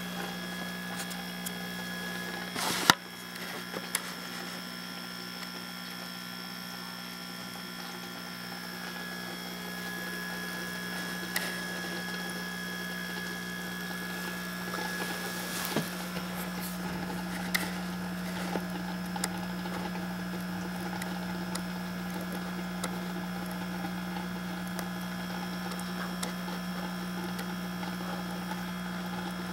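Steady low electrical hum of aquarium equipment, with scattered light clicks and one sharp knock about three seconds in.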